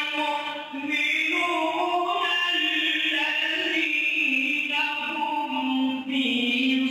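A man chanting Quran recitation in the melodic, drawn-out mujawwad style, holding long notes that step up and down in pitch, with two brief breaks for breath.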